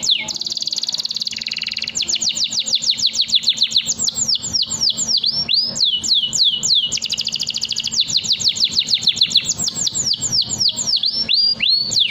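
Domestic canary singing a long, fast song: rapid runs of falling whistled notes, with a buzzing rolled trill at the start.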